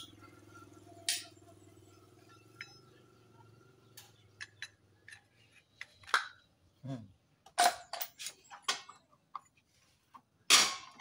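Metal clutch and engine parts of a Honda Supra X 125 clinking and knocking as they are handled and pulled off during an engine strip-down: a run of scattered clicks, with two louder knocks, one past the middle and one near the end. A faint low hum dies away about a third of the way in.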